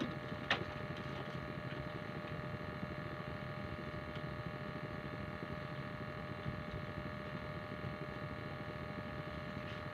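A small engine running steadily with an even mechanical hum; a brief click sounds about half a second in.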